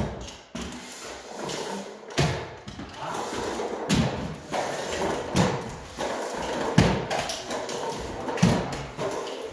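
Drywall stilts clacking and knocking on a bare concrete floor, about one sharp step every second and a half, amid the scrape and rustle of drywall tape being run across ceiling joints from a taping banjo.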